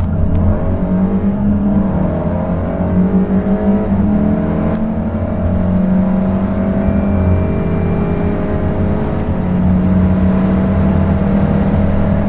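Turbocharged four-cylinder car engine under full-throttle acceleration, heard from inside the cabin, its note climbing steadily in pitch over a constant low drone.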